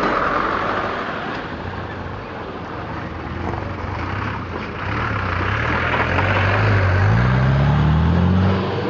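Engines of a dump truck and then a car driving slowly over a rutted dirt road, with one engine revving up and its pitch rising from about seven seconds in.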